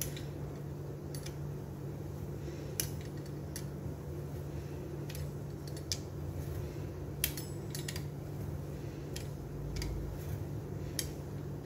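Metal wheel cutter rolling across soft dough on a plastic board, scoring slits, with light sharp clicks every second or so as the wheel is set down and lifted. A steady low hum runs underneath.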